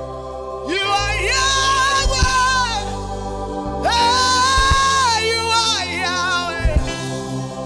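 Live gospel worship: a male lead singer sings two long phrases into a microphone, holding high notes that bend down at their ends, over the band's sustained chords and bass.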